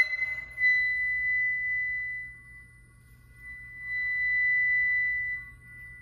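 Solo flute holding a long, high, steady note that fades away, then a second long high note that swells and dies off near the end.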